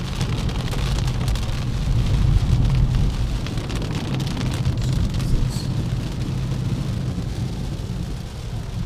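Heavy rain pattering on a car's roof and windscreen, heard from inside the cabin, over the steady low rumble of the car driving along a flooded road.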